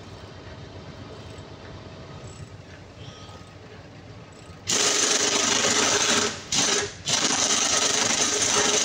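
Oil-flushing equipment at work on a Cummins QST30 generator engine: a low, steady machine rumble, then about halfway a loud, even rushing noise starts suddenly and cuts out briefly twice before running on.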